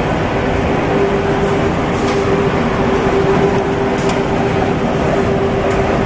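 Inline flexo printer-slotter-die-cutter-gluer carton machine running: loud, steady machine noise with a constant hum tone and a few faint clicks.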